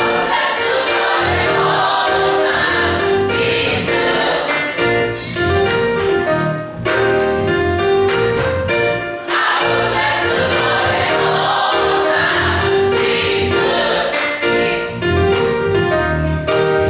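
Adult church choir singing a gospel song together, accompanied by an electronic keyboard.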